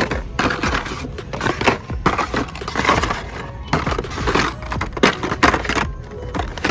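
Hot Wheels blister packs clacking and crinkling as a hand flips through them on a cardboard display: a dense run of irregular plastic clicks and rustles.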